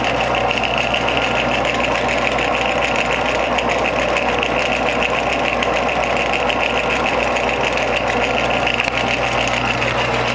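Shop Fox wood lathe running steadily, with a constant motor hum and fast, even rattle from the spinning drive.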